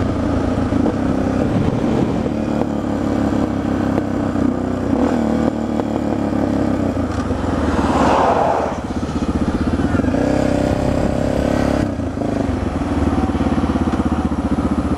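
Suzuki DR650's single-cylinder engine running under way on the motorcycle, heard from the rider's helmet with wind noise, easing off briefly about nine and twelve seconds in.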